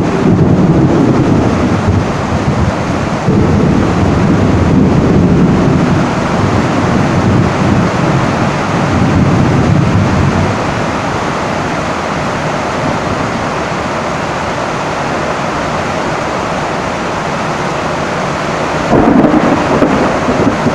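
Rain drumming steadily on a tin roof under a long roll of thunder that rumbles for about ten seconds and then dies away. A fresh rumble of thunder starts near the end.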